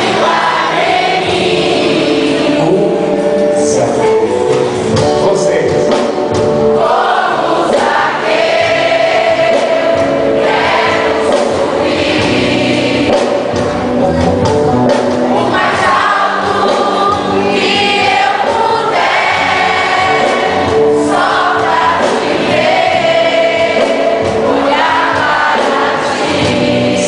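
Catholic worship hymn sung by a choir of voices with band accompaniment, the melody running on continuously with a steady beat.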